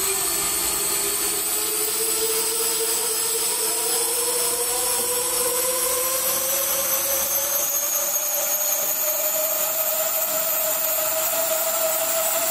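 Electric tip-drive motors at the rotor-blade tips of a homebuilt tip-jet RC helicopter, spinning the rotor with a steady whine. The whine rises slowly and evenly in pitch as the rotor keeps spinning up.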